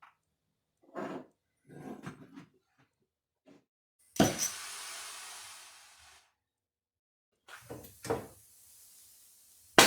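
Metal parts and tools being handled on a workbench: a run of short knocks and clatters. About four seconds in there is a sharp hit followed by a hiss that fades over about two seconds, then a few more knocks, and a loud hiss starts just before the end.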